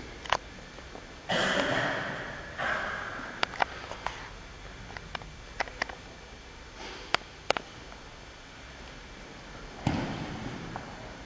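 Heavy breathing of two grapplers sparring on mats: loud hissing exhalations about a second in, again shortly after, and near the end, with scattered sharp clicks in between.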